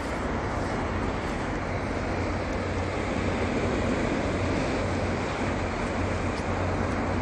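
Steady rushing of sea surf washing over rocks and concrete tetrapods, mixed with wind, a little louder from about three seconds in.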